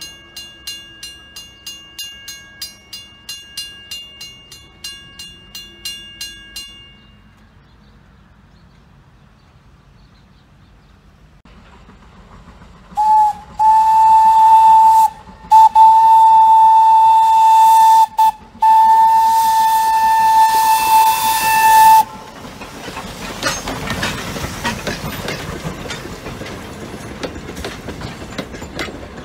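Railroad crossing bell ringing about twice a second, stopping about seven seconds in. About six seconds later the Thomas the Tank Engine locomotive blows its whistle for the crossing in four blasts, one short and three long, then its train of coaches rolls past with a rumble and wheel clatter.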